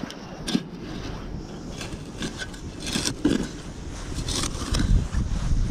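Metal hand digger scraping and jabbing into loose soil: a run of irregular scrapes of varying strength.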